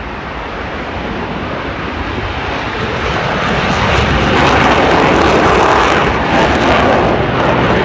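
Blue Angels F/A-18 Hornet jets flying low in a four-jet formation: a loud, even jet roar that builds steadily and is loudest from about four seconds in.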